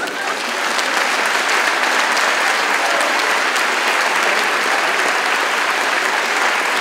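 Audience applauding, the clapping building over about the first second and then holding steady.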